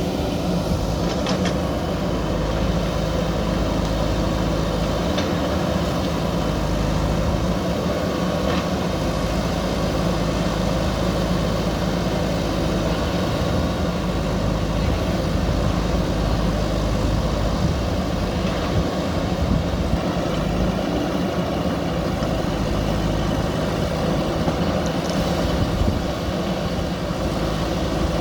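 JCB backhoe loader's diesel engine running steadily, with a few faint knocks.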